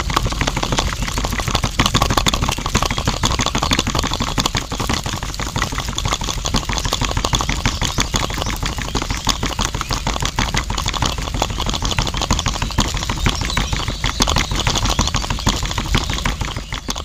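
Small electric motor turning the drum of a miniature concrete mixer, running steadily with a dense, rapid clatter and a low hum; it cuts off suddenly at the end.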